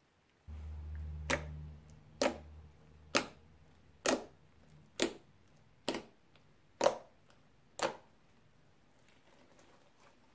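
Crunchy slime being pressed or poked, giving eight sharp pops about a second apart, with a low hum in the first couple of seconds.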